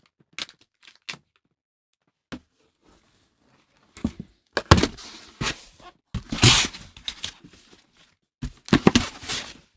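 Cardboard box being handled: a few light taps, then from about four seconds in a run of loud, irregular thunks and scraping rustles of the card.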